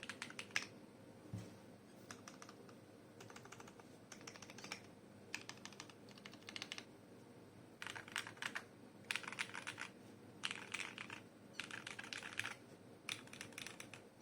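Typing in short bursts on a mechanical keyboard with Durock T1 67 g tactile switches in full nylon housings, lubed, mounted on a gasket-mounted brass plate in a stacked acrylic MON1 case with PBT keycaps. Rapid runs of keystrokes come with short pauses between them, and there is one deeper thump about a second and a half in.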